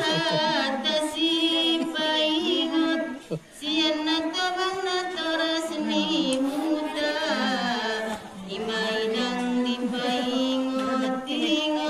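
Women singing a Mandailing-language kasidah without any instruments: a slow, wavering melody of long, drawn-out notes, with a short break for breath about three seconds in.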